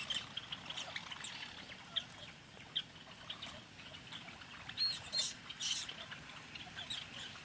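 A flock of small birds chirping and chattering steadily, with a few louder, higher calls about five seconds in.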